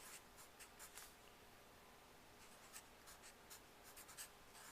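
Faint scratching of writing strokes, many short scratches scattered through near silence.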